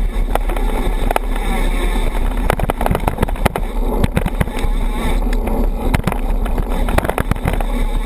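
Mountain bike rolling along a dirt singletrack, heard through a GoPro mounted on the bike: a steady low wind rumble on the microphone with frequent sharp rattles and knocks as the bike jolts over the bumpy trail.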